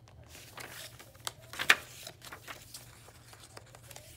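Paper pages and inserts of a handmade junk journal being turned and handled: light rustling and flicks, with one louder sharp click about one and a half seconds in.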